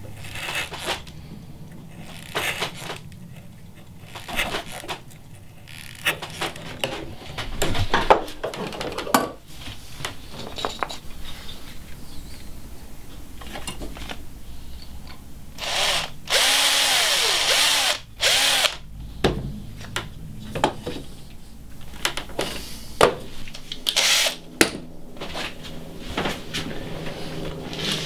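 Woodworking sounds: an electric drill boring into wood, running in a loud stretch of about two seconds partway through, among repeated short knocks and scrapes of working wood by hand.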